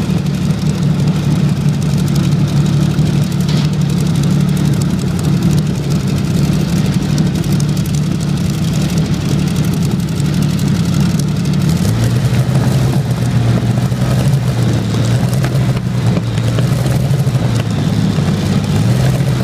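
Rolls-Royce Meteor Mk IVB V12 tank engine, the Merlin-derived 27-litre petrol engine, running steadily on an open display stand, then settling to a lower engine speed about twelve seconds in.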